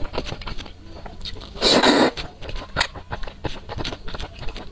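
Close-miked eating of thick saucy noodles: wet chewing and mouth clicks, with one loud slurp of noodles about two seconds in.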